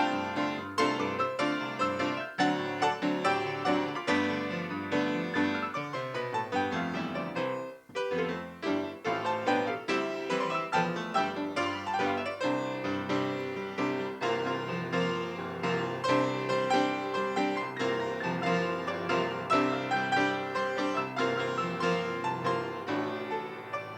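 Piano playing a steady run of struck notes, breaking off briefly about eight seconds in before carrying on.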